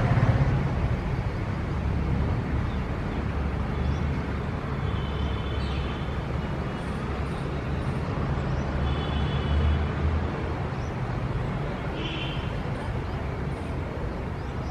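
Steady road-traffic rumble of a city street, with a short high call, likely a bird, repeating every three to four seconds and faint small chirps above it.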